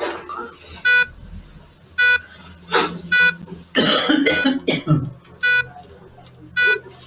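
A person coughing, a short bout of harsh coughs from about three to five seconds in, over a short electronic beep repeating about once a second, as from hospital ward equipment.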